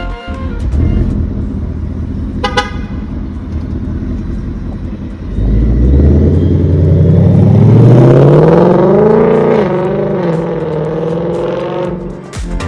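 Ford Mustang Mach 1 exhaust with a newly installed X-pipe. The engine runs loud and low for about five seconds, then revs up in one long climb, holds near the top and falls back toward the end. A brief beep about two and a half seconds in.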